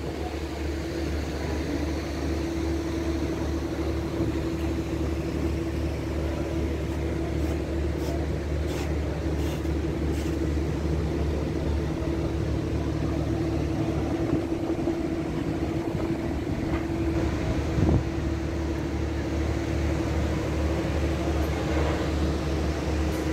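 Steady mechanical hum with a low drone and a constant tone, like fans or air-handling machinery running in a large hall. There is a single dull thump about eighteen seconds in.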